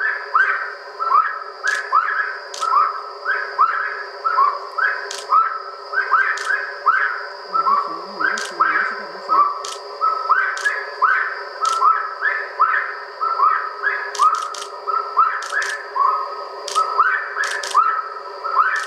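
A bird's whistled call repeated about twice a second, each note sliding in pitch, played back as a recording to lure the bird in. Thin sharp clicks are scattered through it.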